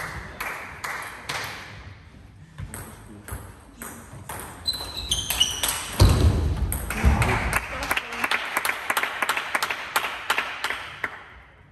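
Table tennis ball clicking off bats and the table in quick succession during a rally, with short high squeaks around the middle and a denser burst of clicking in the second half that dies away near the end.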